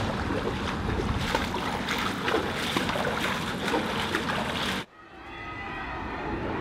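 Kayak paddles splashing and water dripping, many small splashes over a steady wash, cut off abruptly almost five seconds in. A different steady noise then fades in and grows louder.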